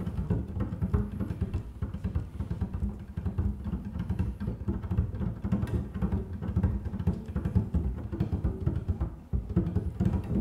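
Double bass played in free improvisation: a rapid, uneven flurry of low, percussive string attacks.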